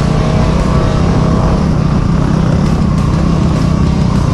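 Yamaha WR250R's single-cylinder four-stroke engine running steadily under way, heard through a helmet-mounted camera's microphone.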